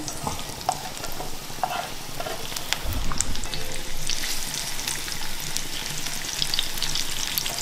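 Sliced onions sizzling and crackling in hot cooking oil in a skillet as they are slid in from a cutting board, with a dull low thump about three seconds in.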